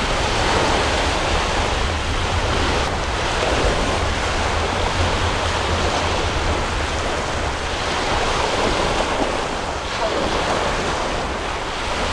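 Steady wind buffeting the microphone with a low rumble, over the continuous wash of a choppy, whitecapped sea.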